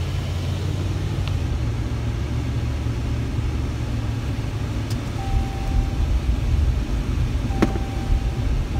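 Car driving with a boat trailer hitched, a steady low rumble. From about five seconds in, a high beep sounds on and off, with a sharp click near the end.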